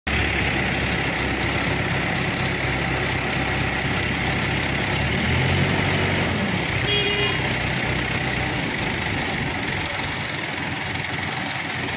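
Diesel engine of an ACE pick-and-carry mobile crane running steadily as it holds a heavy steel hot-press frame on its hook; the low engine drone eases a little about six seconds in. A brief high-pitched tone sounds about seven seconds in.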